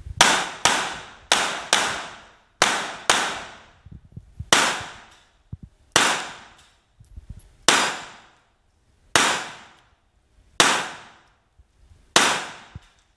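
Handgun shots fired indoors, about a dozen sharp reports, each ringing out in a long echo. The first few come in quick pairs, then single shots follow about one and a half seconds apart.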